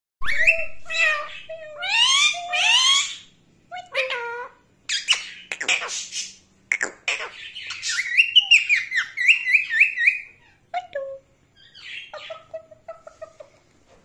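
Indian ringneck parakeet calling and chattering: a string of rising whistled calls, harsh squawks about five seconds in, then a fast run of chirps around eight seconds in, followed by shorter calls.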